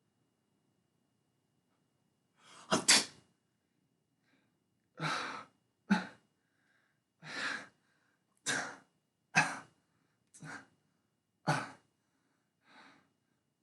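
A person coughing a bad cough: about nine separate coughs roughly a second apart. The first is the loudest and the last ones are fainter.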